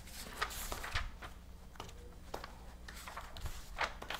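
Paper rustling in short, irregular bursts as pages of a book are turned by hand, over a faint low hum.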